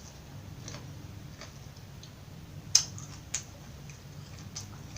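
Close-miked chewing of raw broccoli dipped in cheese: irregular crisp crunches, the sharpest two just under 3 and 3.5 seconds in.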